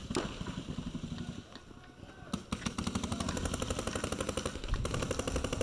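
Paintball markers firing rapid strings of shots: a short burst at the start, a brief lull, then sustained rapid fire from a little over two seconds in.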